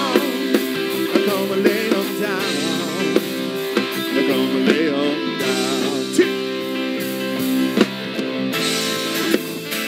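A live band playing a rock-style worship song: strummed acoustic guitar and electric guitar over a drum kit keeping a steady beat.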